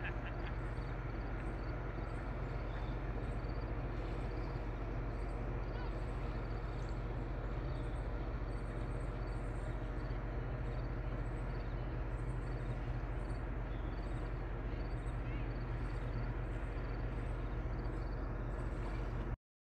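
Outdoor evening ambience: a steady low hum under a regular series of short, high chirps, about two a second. It cuts off suddenly near the end.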